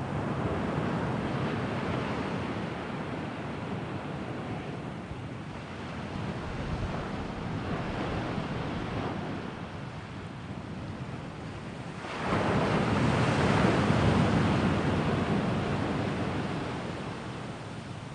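Sea waves washing onto the shore, the noise swelling and falling back three times. The last surge comes in suddenly about two-thirds through, is the loudest, and fades away near the end.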